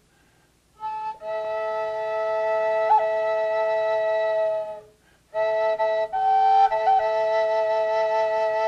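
Solo wooden end-blown flute playing a slow melody of long held notes with brief ornamental flicks between them. It comes in about a second in and stops briefly for a breath around halfway.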